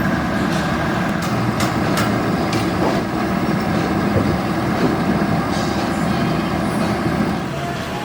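A heavy engine running steadily, with several sharp metallic clinks in the first couple of seconds.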